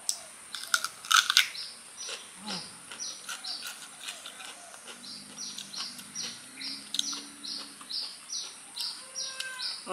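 Crisp crunching bites into a raw ambarella (kedondong) fruit about a second in, then a bird calling steadily, one short falling chirp repeated about twice a second.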